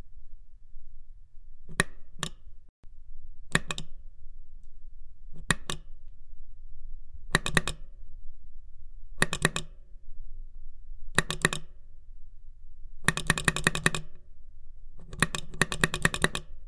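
Device buttons being pressed: sharp clicks, first in pairs a couple of seconds apart, then in quick runs of several clicks, and near the end in two fast runs of a dozen or so clicks each.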